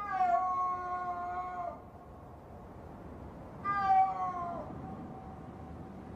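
Snow leopard calling twice: a long, level call lasting about a second and a half, then a shorter call about two seconds later that falls in pitch. It is a mating-season call, the only time of year adult snow leopards call to each other, thought to be a female advertising that she is ready to mate.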